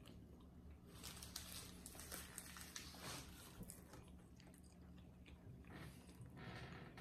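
Faint close-up chewing and biting of frozen pizza, in a few clusters of small crunching mouth sounds, over a low steady hum.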